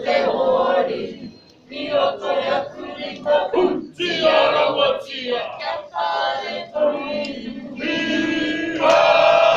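A group of men and women chanting and singing in unison in short phrases, ending in a louder, long held note near the end.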